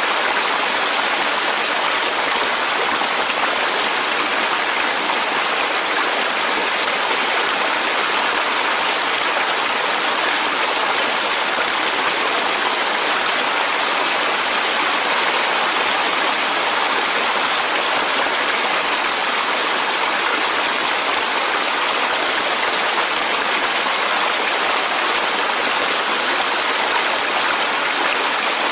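Clear mountain stream rushing over rocks, a steady unbroken wash of running water.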